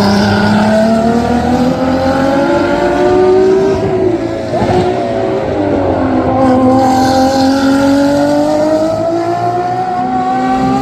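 Race car engine running hard, its pitch climbing slowly for about four seconds, dropping for a moment around the middle, then climbing again toward the end.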